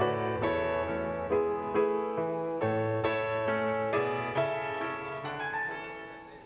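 Slow piano music: chords struck about every half second, fading out over the last couple of seconds.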